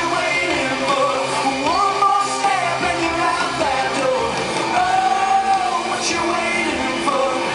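Live rock band playing in an arena, heard from the audience, with a gliding lead melody over the full band and the sound echoing through the hall.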